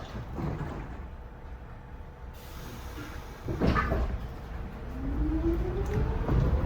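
Subway train pulling out: a short noisy burst about three and a half seconds in, then the traction motors' whine rising steadily in pitch as the train accelerates.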